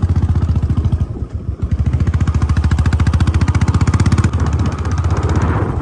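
Vehicle engine running with a rapid, even pulse. It dips briefly about a second in and eases off near the end.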